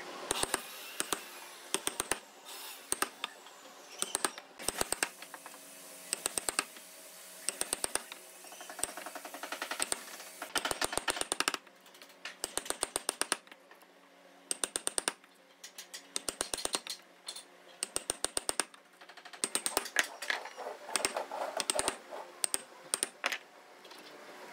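Wooden mallet striking a chisel to chop a mortise in wood: quick runs of sharp knocks, several a second, with short pauses between runs.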